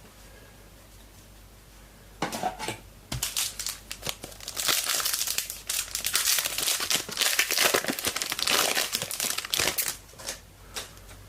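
Trading card pack wrapper being torn open and crinkled by hand: a few rustles about two seconds in, then several seconds of dense crinkling that dies away shortly before the end.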